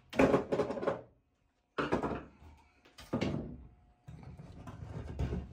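An aluminium sinker mould being opened and worked to free freshly cast lead river sinkers, which stick a little in the cavities. Three separate metallic clunks and clatters, the sinkers coming loose onto a plywood bench, then softer handling noise.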